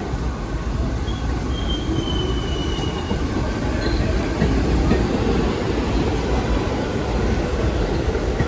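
Subway train running through the station, a steady heavy rumble of wheels on rail, with a brief high wheel squeal about two seconds in.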